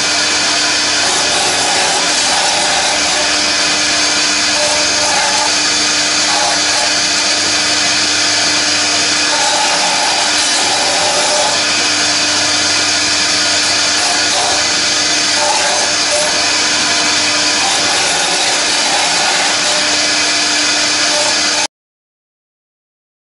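CNC router spindle running steadily as its cutter carves a foam block turning on the rotary axis: a loud, even, high hiss over a steady hum. It cuts off suddenly near the end.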